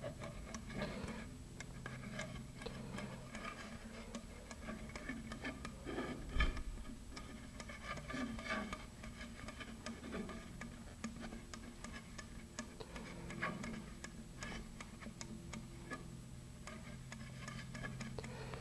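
Quiet handling noise of gloved hands pressing epoxy clay inside a fiberglass nose cone: small irregular clicks and taps over a low steady hum, with one soft thump about six seconds in.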